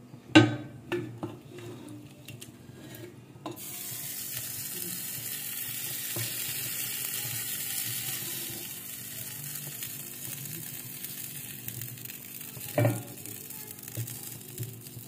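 Spoon knocks and scrapes against an aluminium pressure cooker as keema aloo is served out. A steady hiss starts abruptly a few seconds in, and a single knock and lighter taps of a spoon on the serving dish come near the end.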